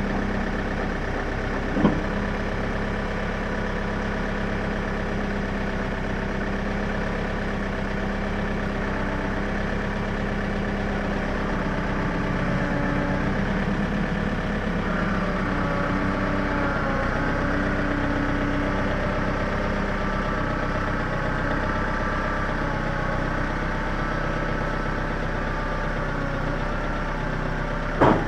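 John Deere 110 backhoe's diesel engine running steadily, its note shifting and rising a little about halfway through. A sharp knock sounds about two seconds in and another near the end.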